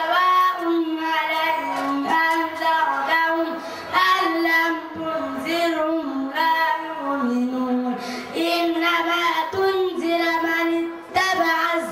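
A boy's solo voice chanting a slow, melodic religious recitation into a microphone, in long held notes that step up and down between short breaths.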